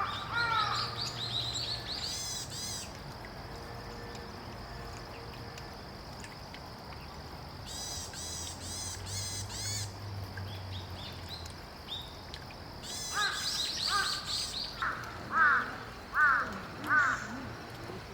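Wild birds calling: bursts of rapid, high, thin chirps come three times, and near the end three or four louder, lower calls ring out a second or less apart.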